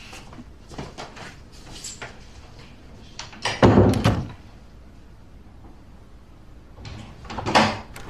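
Interior door sounds: a door handled and shut with a loud knock a little past the middle, and another door sound near the end.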